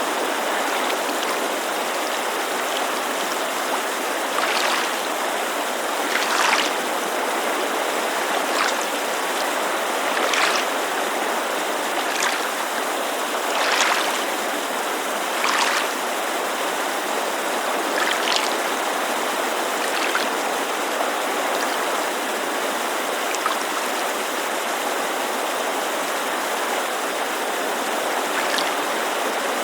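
Steady rushing of a mountain creek, with small waves lapping against a lakeshore in short splashes every second or two.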